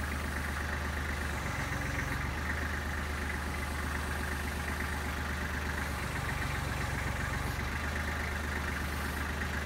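Compact tractor engine idling steadily; its low note shifts briefly twice.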